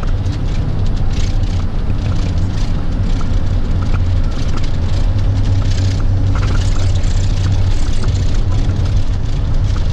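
Engine and road noise of a moving vehicle heard inside its cabin: a steady low drone with tyre and wind noise over it.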